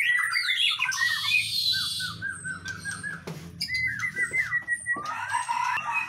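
Several caged songbirds singing at once: strings of quick repeated chirping notes, with a harsh buzzy phrase about a second in and a denser chorus near the end.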